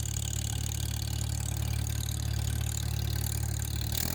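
Farmall Super M tractor's four-cylinder engine idling steadily.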